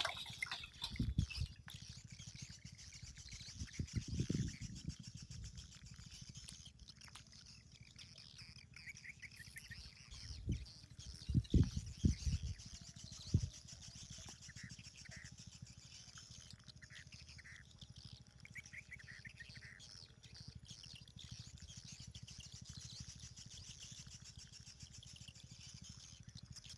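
Small birds chirping over a steady high hiss of outdoor ambience, with a few dull thumps near the start and a louder cluster of thumps about halfway through.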